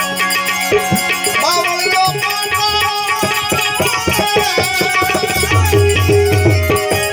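Instrumental interlude of Gujarati devotional folk music: tabla drumming under a wavering melodic instrument line, with deep low notes pulsing in the last second or two.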